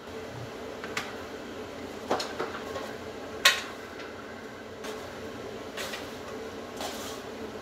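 Metal tongs clinking and scraping on a metal sheet pan as roasted cauliflower is lifted into a ceramic dish: about six separate clinks, the loudest about three and a half seconds in, over a steady low hum.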